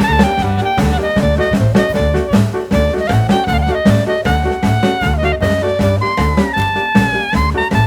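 Background music in a jazz swing style: a horn melody over drums and steadily pulsing bass notes.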